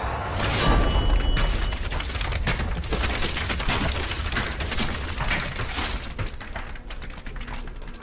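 Film sound effect of dry ground cracking open around a sword driven into it: a deep rumble under a dense run of crackling and splintering, easing off about six seconds in.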